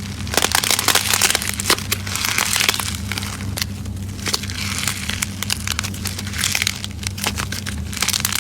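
Hands squeezing and pressing crunchy slime: a dense, irregular run of crackles and pops over a faint steady low hum.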